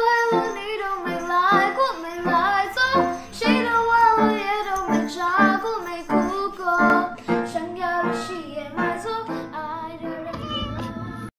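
Background music: a song with a high voice singing over plucked strings, cutting off suddenly near the end.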